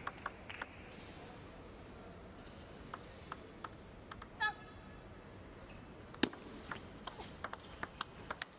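Sharp clicks of a plastic table tennis ball on the table and rackets, scattered at first and then coming in a quick run near the end as a rally is played. A short squeak comes about four and a half seconds in, over a low steady hum of arena noise.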